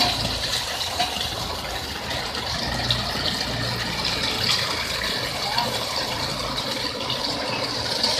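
Self-loading concrete mixer at work: its engine running steadily under a dense rushing, rattling noise, with a few sharp clicks.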